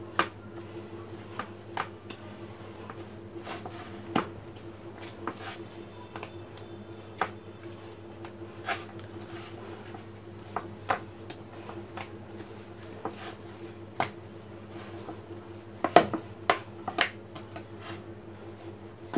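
Hands kneading a ball of flour dough on a wooden chopping board: irregular soft knocks and clicks as the dough is pressed and pushed against the board, with a cluster of louder knocks about three-quarters of the way through, over a steady hum.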